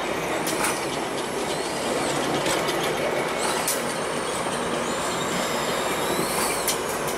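Amtrak Cascades Talgo passenger coaches rolling slowly past on the rails: a steady rumble broken by a few sharp wheel clicks over rail joints, with a faint high wheel squeal near the end.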